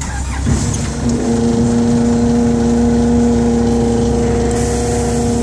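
The machinery of a truck-mounted Bergkamp M2 micro-surfacing paver spins up as it is switched on from the control panel. It rises in pitch for about a second, then runs at a steady whine with overtones. A high hiss joins about four and a half seconds in.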